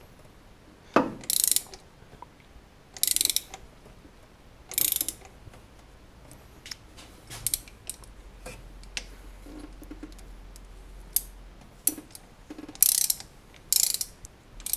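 Ratchet wrench clicking in short bursts as it turns a thread tap in a spark plug hole of a VAZ 2109 cylinder head, cutting new thread. About five bursts of quick clicks, with a few single clicks between.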